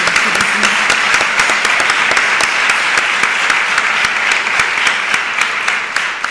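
Audience applauding: many hands clapping in a dense, steady patter, beginning to die away near the end.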